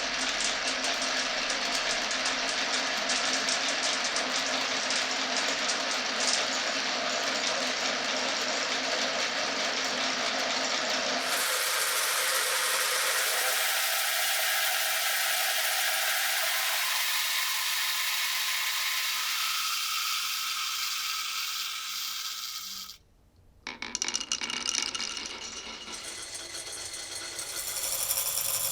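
Marbles rolling and rattling along a marble run's tracks. The sound is continuous and changes to a thinner, higher rattle about eleven seconds in, then fades. About 23 seconds in it stops short, and after that the rolling resumes and grows louder near the end.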